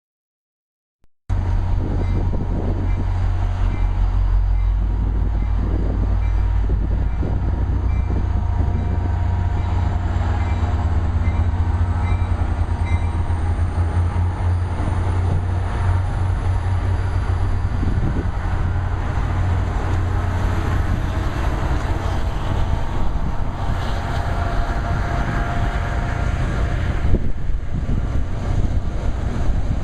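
MBTA commuter rail diesel locomotive running close by: a loud, steady low engine drone with a faint high whine slowly rising in pitch. The sound cuts in about a second in.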